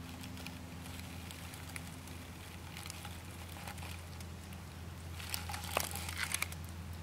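Dry grass and twigs crackling as a California kingsnake crawls over them, with a burst of crackles near the end over a steady low hum.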